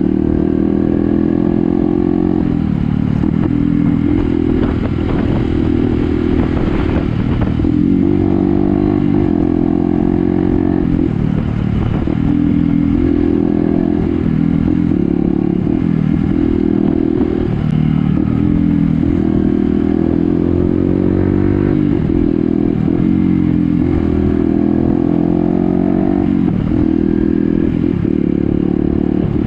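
Motorcycle engine running under way, its note climbing and dropping every few seconds as the throttle is opened and eased off.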